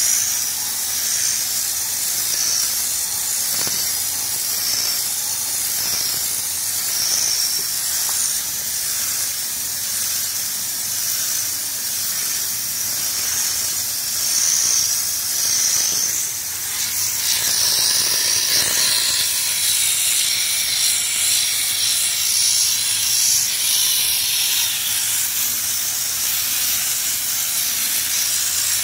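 Compressed-air Raptor liner spray gun hissing steadily as it sprays a coat of textured bedliner, easing off briefly about sixteen seconds in.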